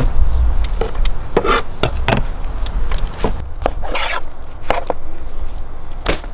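Large knife cutting through a raw lamb carcass on a wooden table: irregular knocks and scrapes of the blade against meat, bone and board, over a steady low rumble.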